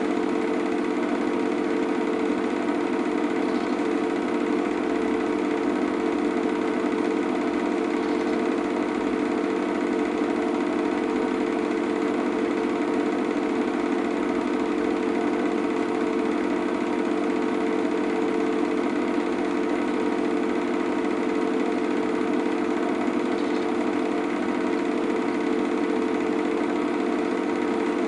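Steady mechanical whirr and clatter of a cine film projector running, a constant hum that does not change with the pictures.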